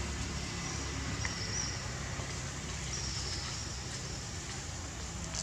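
Steady outdoor background noise with a low rumble, and two faint, thin, high-pitched calls about a second in and again about three seconds in.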